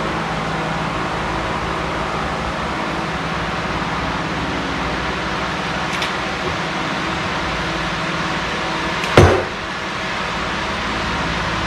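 Steady fan-like hum throughout. About nine seconds in comes a single sharp, loud clunk with a short ring, from hands-on work at the top of a Bridgeport milling machine's head, with a faint click a few seconds before it.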